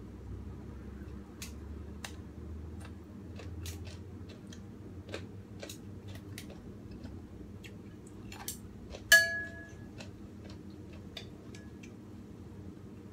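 Small scattered clicks and taps of hands handling food and utensils over a bowl, with one loud, briefly ringing clink about nine seconds in, like a spoon striking the ceramic soup bowl. A steady low hum runs underneath.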